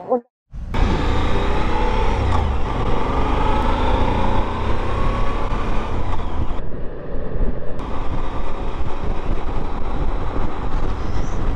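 Motorcycle riding at highway speed: wind rushing over the helmet-mounted microphone, with the engine running underneath and its pitch sliding a little in the first few seconds.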